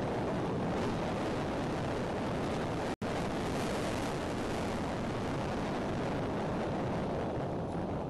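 Strong gusty wind blasting the outdoor microphone: a steady, heavy rushing noise, deepest in the low range. The sound cuts out for an instant about three seconds in.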